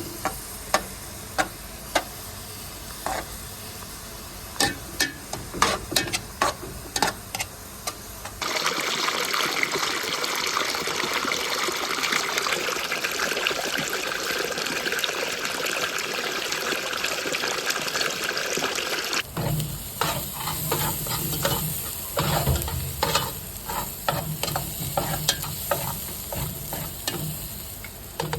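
Outdoor cooking sounds in three edited stretches. First come scattered sharp clicks and taps, then a steady even hiss of frying for about eleven seconds that cuts off suddenly, then more clicks and taps over a low rumble.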